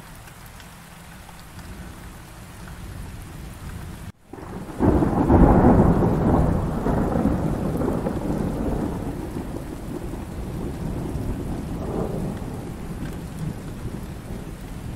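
Steady rain falling. About four seconds in it cuts out for a moment, then a loud peal of thunder breaks and fades slowly over several seconds while the rain keeps on.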